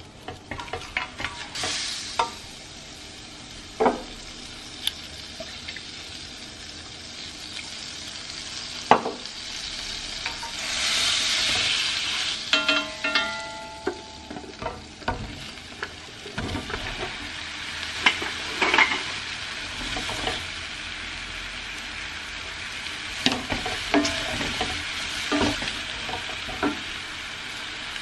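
Butter frying in a stainless-steel skillet, stirred and scraped with a wooden spatula, with scattered sharp knocks of wood on the pan. About ten seconds in the sizzling swells loudly as cut mushrooms are tipped into the hot butter, with a few short metallic rings. After that the mushrooms sizzle as the spatula turns them.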